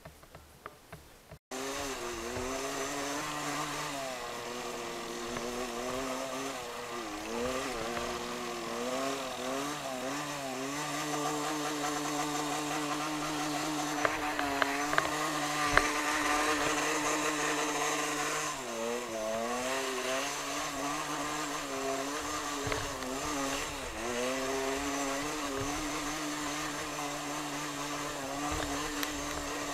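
Small motorcycle engine running under way, its pitch dropping and climbing again several times as the throttle is eased off and opened up.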